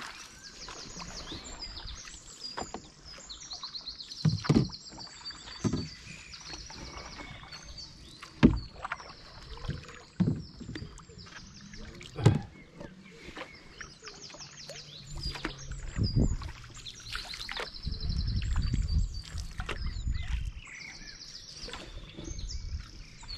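Canoe paddles dipping and pulling through river water, a sharp splash with each stroke every second or two, with water dripping off the blades. Small birds trill high-pitched in the background.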